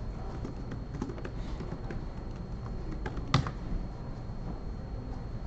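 Computer keyboard typing: irregular keystrokes, with one louder click a little past three seconds in.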